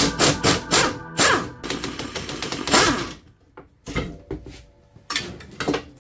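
Pneumatic impact wrench hammering on a bolt in short bursts: a quick rattle of impacts at first, two longer runs about a second and three seconds in, then a few single knocks.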